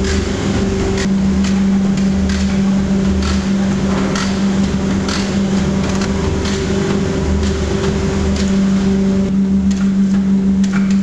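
Meat brine injector running: a steady motor hum with a regular knock and pulse about once a second as the needle head strokes.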